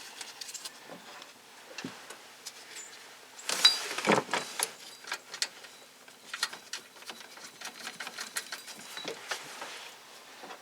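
Irregular small clicks and metallic clinks of hand tools and engine parts being handled during reassembly, with a louder clatter about four seconds in.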